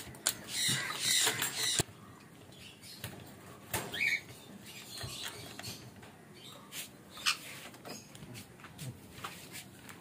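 A small mesh bird cage scraping and rattling against plastic crates as it is pulled out, for about a second and a half, ending in a sharp knock. Faint scattered clicks and a short high squeak follow.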